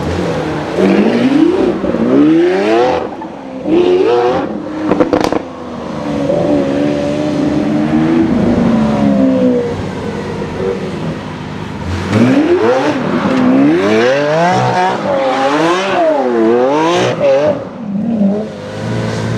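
Lamborghini Centenario's 6.5-litre V12 revving hard again and again, its note climbing and dropping in quick repeated sweeps, with a steadier lower running spell in between. A single sharp crack sounds about five seconds in.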